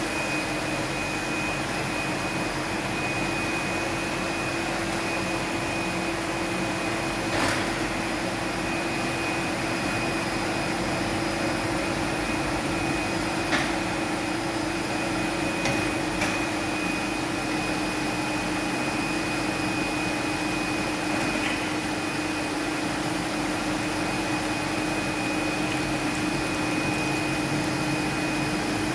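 Polar paper-cutting system running, a steady whirring machine hum with a low and a high steady tone, and a few light clicks.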